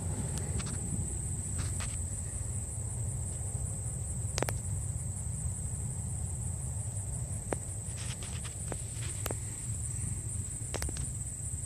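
Insects in grass drone steadily at a single high pitch, with a low rumble underneath and a few sharp clicks scattered through, the loudest about four seconds in.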